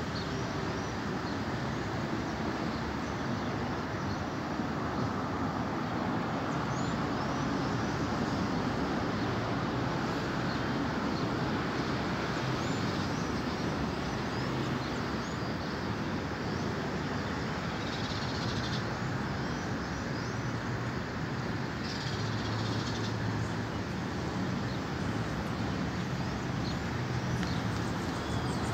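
Steady outdoor rumble with many short, high bird chirps over it, and two brief high buzzes in the second half.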